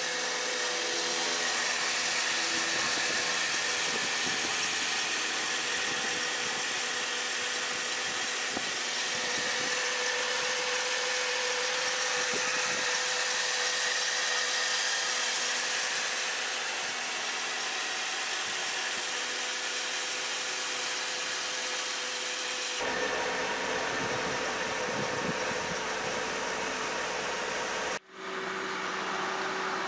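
Mercedes-Benz W210 E320's M112 V6 engine idling steadily under the open hood, warming up after a cold start.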